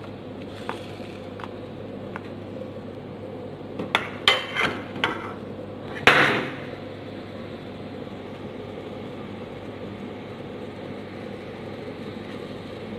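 A metal spoon knocking against a metal wok: a few light taps, then a quick run of about five sharp knocks and one last louder clang that rings briefly, over a steady low background hum.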